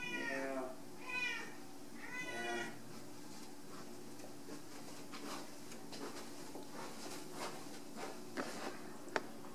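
Domestic cat meowing: three short meows in the first three seconds, then faint clicks and rustling with one sharp click near the end.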